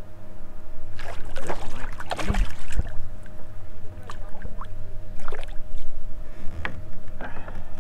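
Small fishing boat on the river with a motor humming steadily, while short splashes and knocks come and go, the loudest a low thump about two and a half seconds in.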